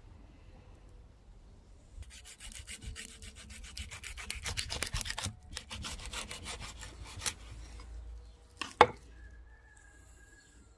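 A knife cutting through cold-smoked mackerel on a board: quick, rasping back-and-forth strokes for about five seconds, with a short break in the middle. A single sharp knock near the end is the loudest sound.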